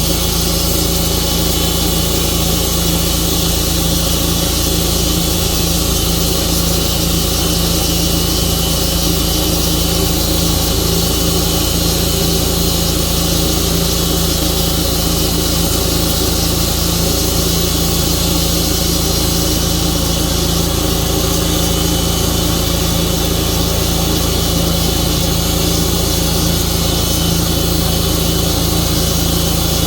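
Tru-Cut portable bandsaw sawmill's engine running steadily.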